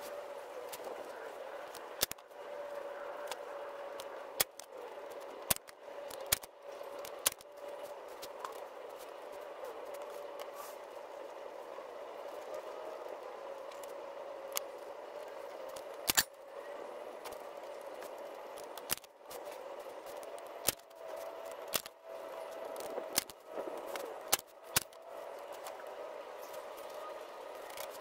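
Manual Arrow staple gun driving staples through vinyl into a plywood seat base: about a dozen sharp snaps at irregular intervals, over a steady hum.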